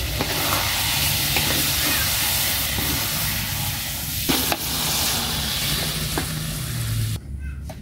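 Spiced chicken sizzling in a metal wok as the last of its braising liquid cooks off, with a few sharp clicks of a utensil against the pan. The sizzling cuts off suddenly near the end.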